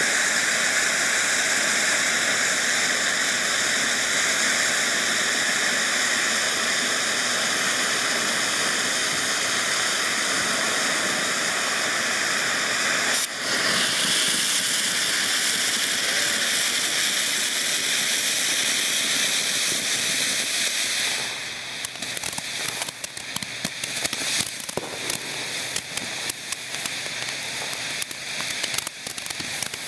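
Ground fountain fireworks spraying sparks with a steady, loud hiss. About two-thirds of the way through, the hiss drops back and dense, irregular crackling takes over.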